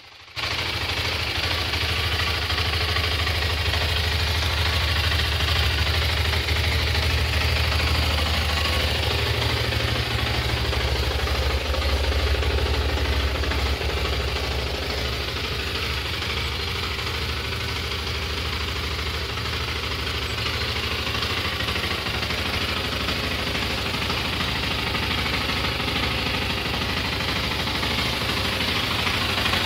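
BMW F 650 GS Dakar's single-cylinder engine idling steadily, with no revving.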